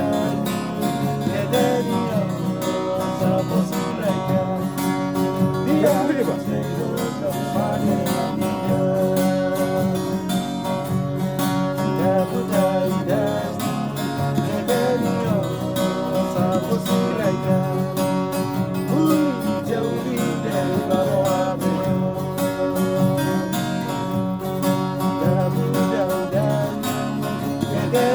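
String band music: acoustic guitars strumming a steady rhythm under a plucked melody line.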